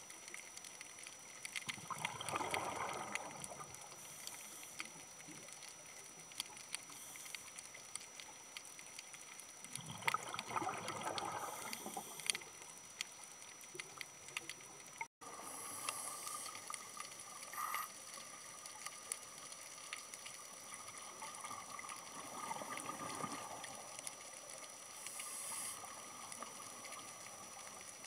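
A scuba diver's regulator breathing heard underwater: a gurgling rush of exhaled bubbles three times, roughly every eight to twelve seconds, over a faint steady hiss with scattered ticks and crackles. The sound cuts out for an instant about halfway through.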